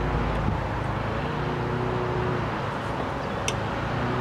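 A steady low droning hum with several even tones, and one sharp light click about three and a half seconds in as plastic engine-bay parts are handled.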